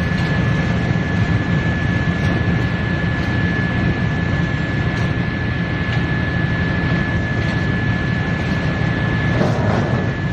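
Disc wood chipper running: a loud, steady drone with a constant high whine, broken by a few brief clicks and a rougher stretch near the end.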